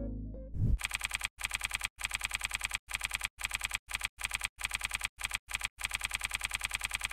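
Keyboard typing sound effect: rapid key clicks, about ten a second, in short runs broken by brief silences. It follows the last notes of electronic intro music fading out in the first half second.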